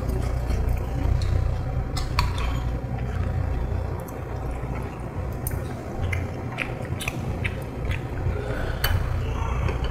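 Eating at a table: spoons and chopsticks clinking against bowls and plates in a few sharp clicks, with chewing and slurping of hot soup, over a steady low hum.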